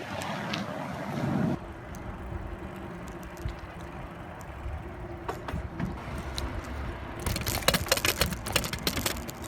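Riding noise picked up by a phone mounted on a moving bicycle: a steady low road rumble, turning into quick rattling clicks over the last couple of seconds as the mount shakes.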